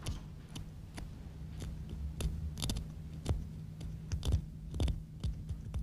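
Small pointed metal tool scraping and picking at the painted hair of a stone bust to take off a tiny sample of the hair dye: a string of irregular short clicks and scratches. A faint steady low hum lies underneath.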